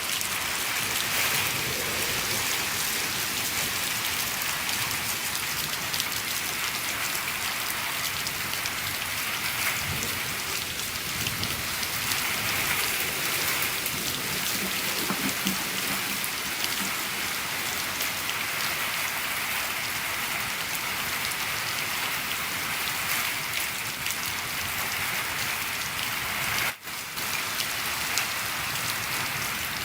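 Steady rain falling on a shed, a dense even hiss full of fine individual drop ticks, with one momentary dip in level near the end.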